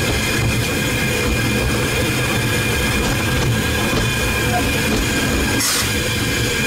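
Running sound in the cab of steam locomotive No. 7 on the move: several steady high ringing tones over a constant low rumble, with a brief high-pitched sound about six seconds in.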